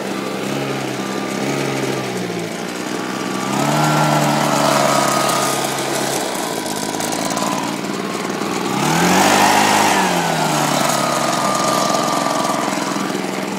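Husqvarna walk-behind lawn mower engine running just after being pull-started, its speed swelling up twice, about 4 and 9 seconds in, and settling back each time.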